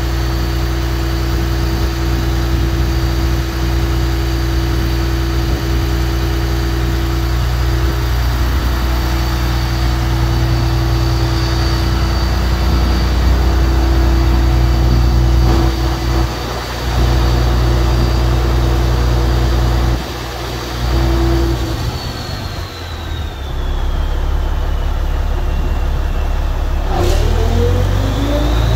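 Aerial ladder platform fire truck's engine running steadily, as it does to drive the ladder's hydraulics, with a high whine that slides down in pitch near the end. The engine note dips briefly twice, and a sharp click comes shortly before the end.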